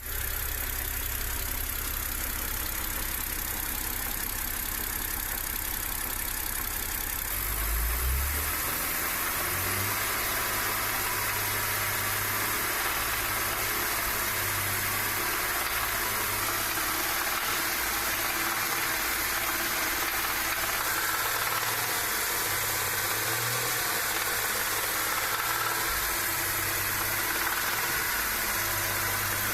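BMW N52B30 3.0-litre straight-six engine running with a knock from worn, broken connecting-rod bearings. The engine note shifts about eight seconds in.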